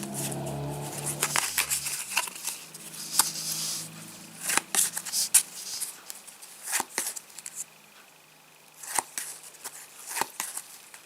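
Topps Match Attax trading cards being handled: cards sliding and flicking against one another, with foil packet crinkling, in short rustles and sharp clicks.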